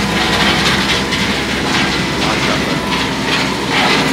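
Steady din of gypsum powder plant machinery running, with gypsum powder pouring from the bagging spout into a sack.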